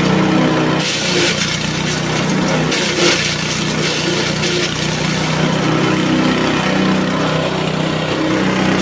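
SM65 multifunction chopper machine running steadily on its engine, with harsher, noisier bursts about a second in and again around three seconds in.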